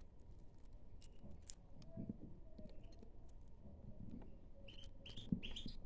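Faint short chirps from caged finches, clustered near the end, over soft crackling and light taps of fingers crumbling a mashed egg-and-almond mix in a small bowl.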